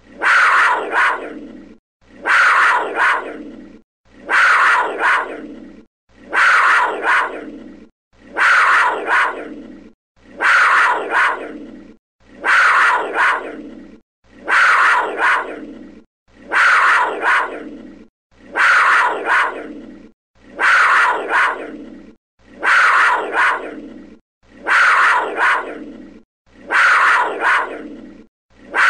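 A big cat's call, billed as a panther, the same recording repeated identically in a loop about every two seconds. Each call starts sharply, peaks again about half a second in and fades out over a second or so.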